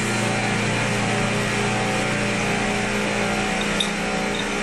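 Steady hum and rush of running plant-room machinery (chiller and pump motors), with a couple of faint light clicks near the end.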